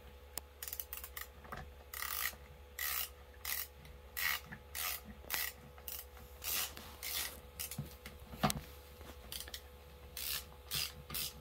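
Ratcheting screwdriver worked back and forth to drive a screw into the plastic chair armrest, giving short rasping ratchet clicks about twice a second.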